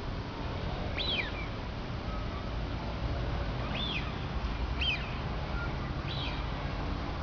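Duck giving four short, high whistled calls, each sweeping up and back down, over a steady low rumble.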